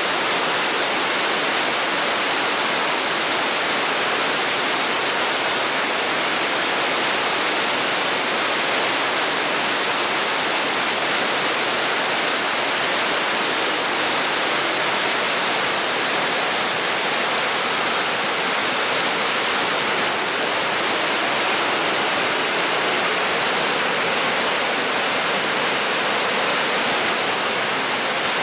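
Mountain stream flowing: a steady, unbroken rush of water.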